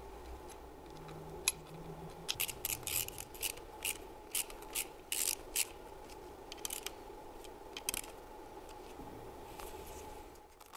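Hand screwdriver turning the housing bolts of a car alternator being reassembled: a run of short scraping clicks, about three or four a second, then a few more spaced out.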